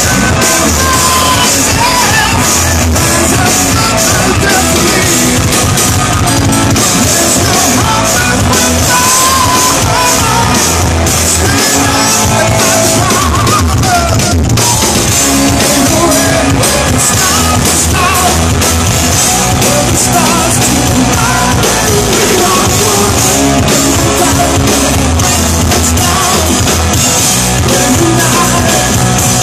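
Rock power trio playing live and loud: electric guitar, electric bass and drum kit, with a lead vocal singing over them.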